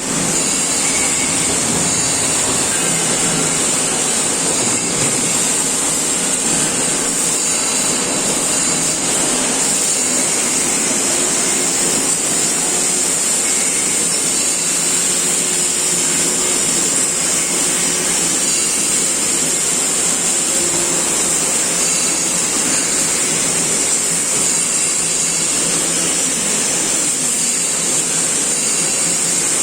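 Steady machinery noise of a robotic welding line, with a constant high hiss over a low hum.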